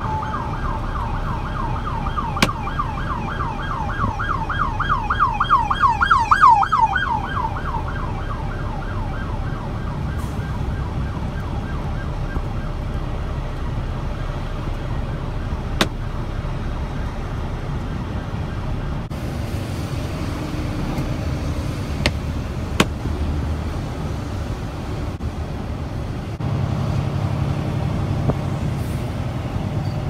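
Police siren in fast yelp mode, a rapid rising-and-falling wail that grows louder for several seconds and stops about eight seconds in. It is heard from inside a truck cab over the cab's steady low rumble.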